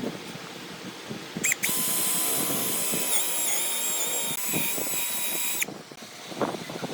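Electric power tool motor, like a drill, starting about a second and a half in and running at a steady high whine for about four seconds. It dips briefly in pitch twice as it takes load, then cuts off abruptly. Scattered light knocks sound before and after.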